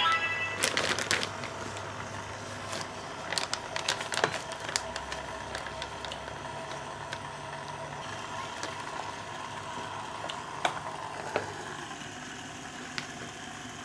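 BONIQ sous vide immersion circulator running with a steady hum while a zipper freezer bag of peaches in syrup is lowered into its water bath. Plastic crinkling and water splashing come with many sharp clicks, densest in the first few seconds.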